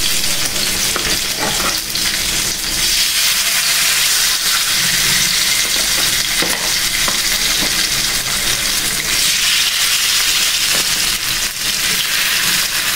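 Spice-coated fish shallow-frying in hot oil in a pan, a loud, steady sizzle with a few faint clicks.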